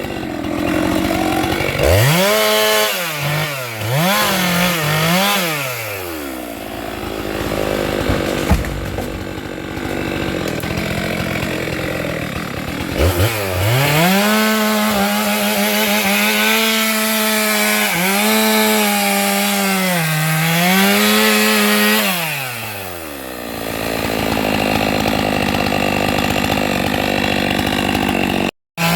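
Stihl MS 462 two-stroke chainsaw revving up and down in short bursts, then held at full throttle for about ten seconds with small dips as it cuts through a sengon branch, before easing back. The sound cuts out for a moment near the end.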